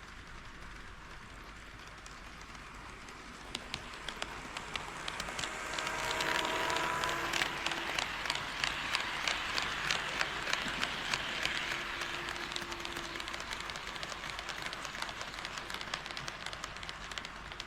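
HO-scale model train running on KATO Unitrack sectional track, wheels clicking rhythmically over the rail joints with a running rush and a brief motor whine. It swells as the train comes close about four seconds in, is loudest for several seconds, then eases only a little.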